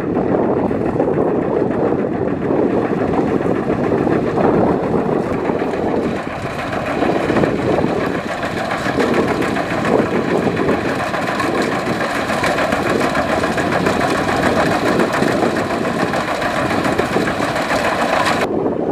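Rice combine harvester's diesel engine and threshing machinery running steadily, with a faint steady whine; the higher part of the sound drops away abruptly near the end.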